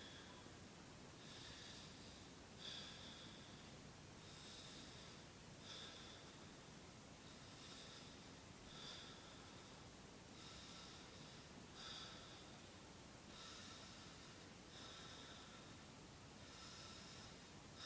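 Faint, slow deep breathing in and out, a hiss of air on each breath, about one full breath every three seconds. The patient is breathing deeply on request for a stethoscope check of the lungs.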